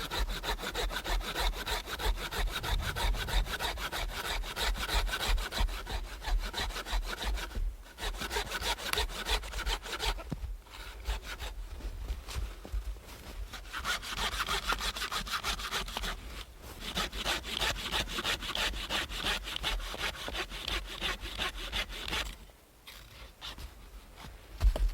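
A hand saw cutting through wood in steady back-and-forth strokes, pausing briefly a few times. The sawing stops a little before the end, followed by a single thump.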